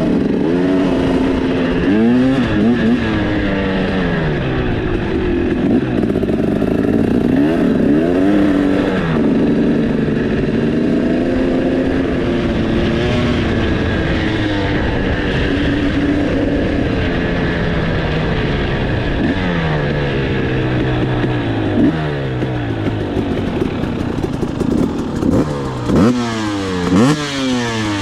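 KTM 300 EXC single-cylinder two-stroke with a Pro Circuit exhaust, ridden on a dirt trail. Its engine note keeps rising and falling as the throttle opens and closes, with several quick, sharp revs near the end.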